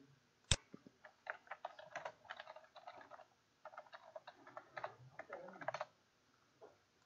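Typing on a computer keyboard: a single sharp click about half a second in, then two quick runs of keystrokes with a short pause between them in the middle.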